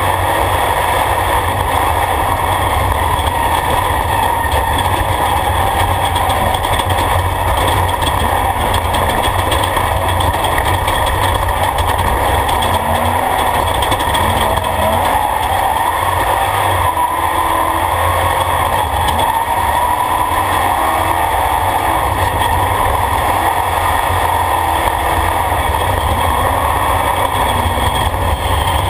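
Off-road race truck driving at speed on a dirt track, its engine running with a steady loud drone whose pitch rises and falls a little, heard from inside the open, netted roll-cage cab.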